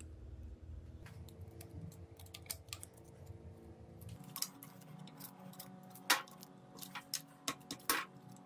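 Small metal clicks and taps of hammer-drill gearbox parts being handled, scattered irregularly, with a few sharper clinks about six and eight seconds in.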